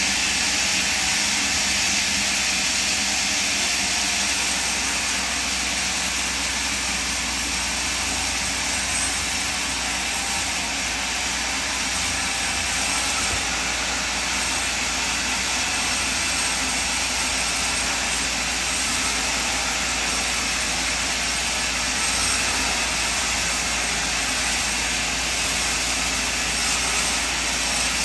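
Horizontal band sawmill running, its band blade cutting steadily lengthwise through a long timber beam: an even, hissy machine noise at constant level throughout.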